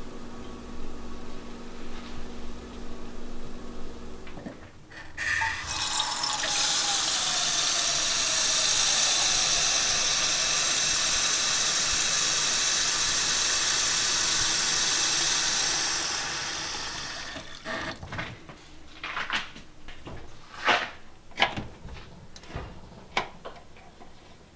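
A low steady hum, then a kitchen tap running hard into a saucepan for about ten seconds as the pot fills, before the water is shut off. Several sharp knocks and clicks follow as the pot is handled and the stove's burner knob is turned.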